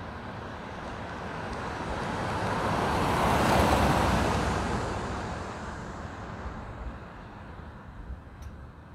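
A car driving past close by, its tyre and engine noise swelling to a peak about halfway through and then fading away.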